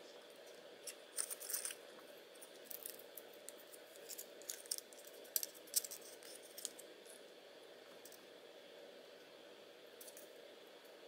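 Thin white card parts of a paper mechanism being handled and fitted together by hand: a run of light clicks and rustles in the first two-thirds, then only a few more, over a steady faint room hum.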